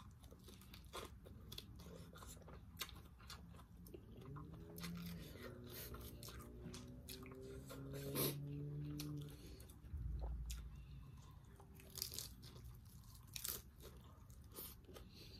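Close-up chewing and crunching of fresh lettuce-leaf wraps, with many small crisp crunches throughout. A low hum runs for a few seconds in the middle.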